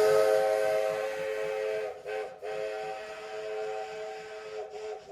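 A train's multi-note chime whistle holding one long chord, broken off briefly twice about two seconds in, then sounding again and slowly fading.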